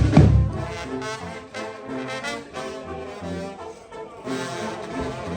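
Brass band music, the kind played by a tamborazo: loud drum beats stop about half a second in and the brass carries on alone with a melody of held notes.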